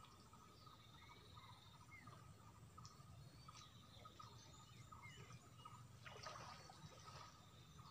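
Faint birdsong: scattered short chirps and whistles from several birds over low, steady background noise.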